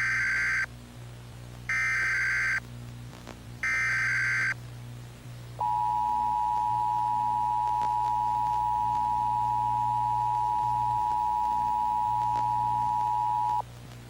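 Emergency Alert System SAME header: three short bursts of shrill digital data tones about two seconds apart. About a second after the last burst comes the EAS attention signal, a steady two-pitch tone held for about eight seconds that cuts off sharply.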